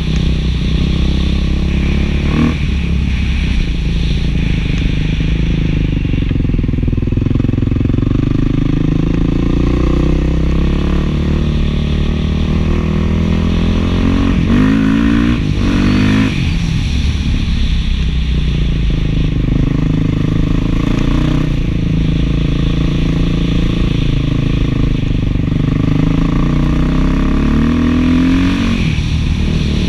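Beta 500 dual-sport motorcycle's single-cylinder four-stroke engine running through an FMF 4.1 slip-on muffler, heard from on the bike while riding. Engine speed rises and falls several times as the throttle opens and closes, with a quick climb around the middle and another near the end.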